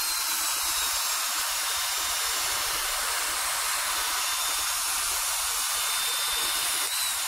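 Total 850W corded two-function impact drill running without load, a steady high whirring hiss from its motor and cooling fan.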